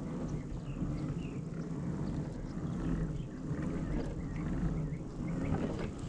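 Wind buffeting the camera microphone: a steady low rumble, with a few faint small knocks.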